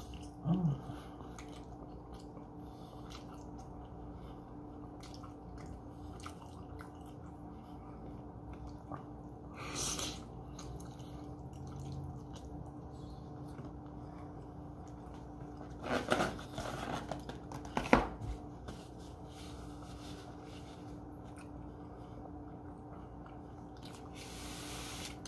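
A person chewing a shrimp dumpling, with small wet mouth sounds and light clicks of a metal fork against a foam takeaway box. There is a sharp click about 18 seconds in, and a short breath out near the end, over a faint steady hum.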